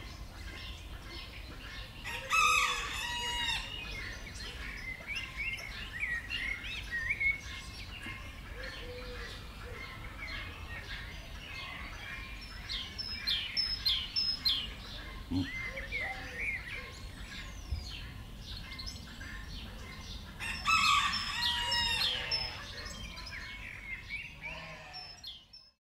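Forest birds chirping and calling, many short calls overlapping, with two louder bouts of calling about two seconds in and about twenty-one seconds in. The sound fades out at the end.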